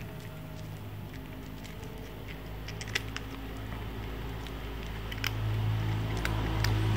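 Tabby cat crunching dry kibble: a scatter of sharp, irregular crackly clicks. Under it runs a low steady hum that grows louder toward the end.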